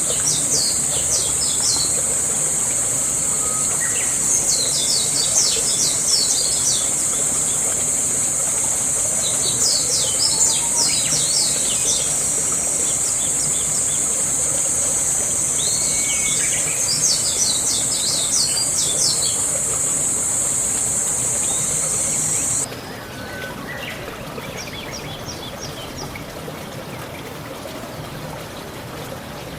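Songbirds chirping in quick clusters of rapid notes every few seconds over a steady high-pitched insect buzz. The buzz cuts off suddenly about three-quarters of the way through, and the chirping goes on over quieter background.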